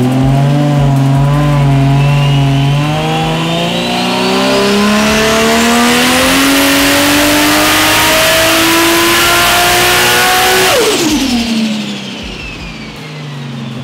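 Ford Barra turbocharged inline-six on a chassis dyno, pulling under load with its revs climbing steadily and a high turbo whine rising with them. About eleven seconds in it lifts off: revs and whine fall away quickly and the engine drops back to a quieter run.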